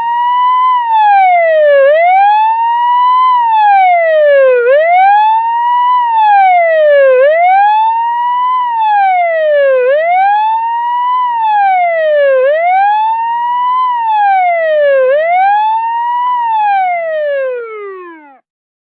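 Ambulance siren on a wail: one tone sweeping up and down between a low and a high pitch about every two and a half seconds, seven times over, then sliding down and cutting off near the end.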